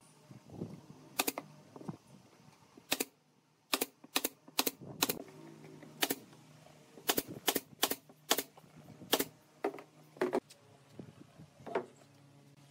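Pneumatic brad nailer firing nails into pine boards: about fifteen sharp shots at an uneven pace, several in quick runs of two or three.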